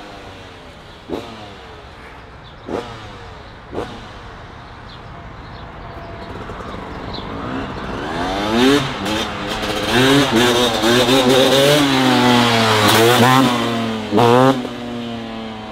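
Dirt bike engine revving again and again, its pitch rising and dropping as the rider works the throttle and clutch to hold a wheelie, getting louder as the bike comes closer. A few short sharp clicks sound in the first four seconds.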